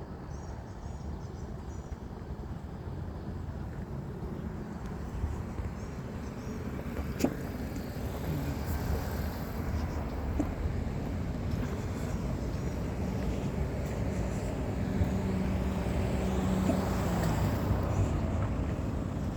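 A motor vehicle's engine rumbling low and steady, growing louder toward the end with a steady hum. One sharp click about seven seconds in.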